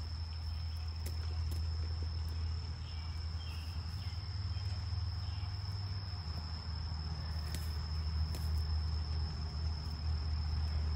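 Steady high-pitched insect trill, one unbroken tone, over a steady low rumble.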